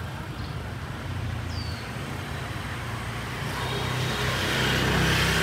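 Street traffic: steady engine hum of passing vehicles, growing louder over the last couple of seconds as one comes closer.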